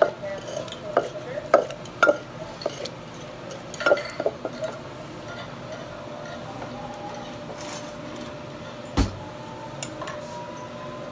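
Wooden pestle pounding tomatoes and chilies in a clay mortar: a run of uneven knocks in the first half, then a pause and a single deeper thump near the end.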